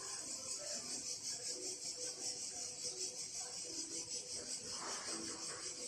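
Chorus of cicadas buzzing in the trees, a steady high-pitched drone with a fast, even pulsing.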